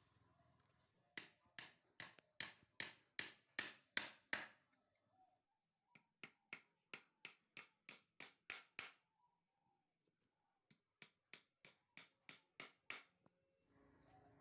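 Hammer blows on wood: three runs of quick, even strikes, about three a second, with short pauses between the runs.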